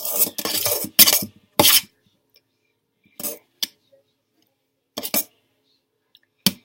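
Metal spoon clinking and knocking against a bowl: a quick run of clatter in the first two seconds, then a few separate knocks.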